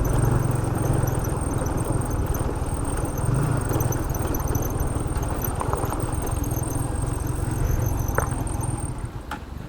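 Motorcycle engine running steadily at idle, then cut off about nine seconds in.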